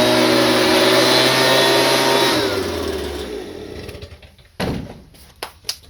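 Small petrol engine running at high speed, then shut off and winding down over about a second. A thump and a few light clicks follow near the end.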